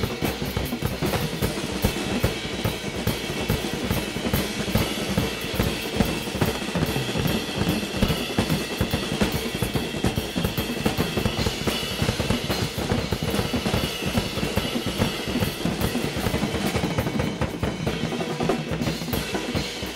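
Drums played fast and busy: a dense, unbroken rhythm of bass drum and snare strokes with rolls.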